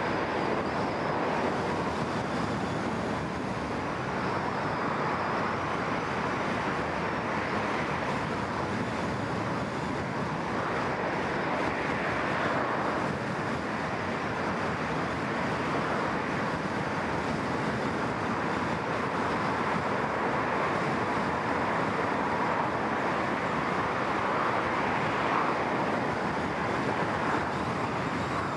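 Steady road noise of a car driving on city asphalt: tyre roar and wind, heard through a microphone mounted outside the car, with the sound of other traffic on the road.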